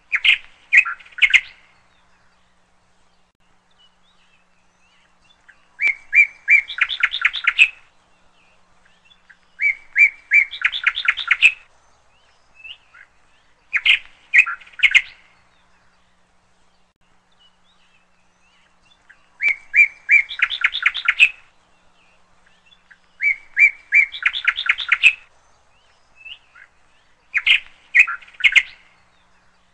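A songbird singing in seven short phrases a few seconds apart, each a second or two of high notes that run into a quick string of repeated notes.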